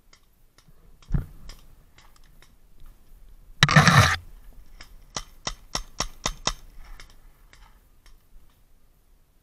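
Paintball marker shots: a thump just after a second and a loud half-second burst about four seconds in, then a quick string of about seven sharp pops at roughly five a second, followed by a few fainter ones.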